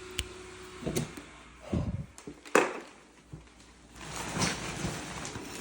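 A few short knocks and thumps; the loudest is a sharp knock about two and a half seconds in. A rustling noise follows near the end.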